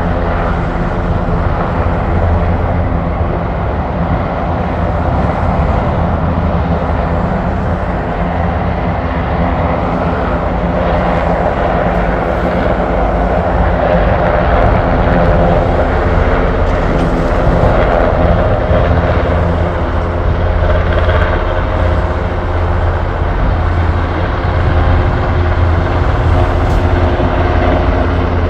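Surion fire helicopter's rotor and turbine engines running steadily, a continuous low beating drone that grows a little louder through the middle.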